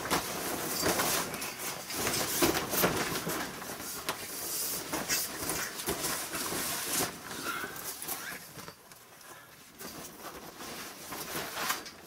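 Plastic carport canvas rustling and crinkling as it is pushed and pulled over the metal frame, with irregular scrapes and rattles. It is loudest over the first several seconds and quietens after about eight seconds.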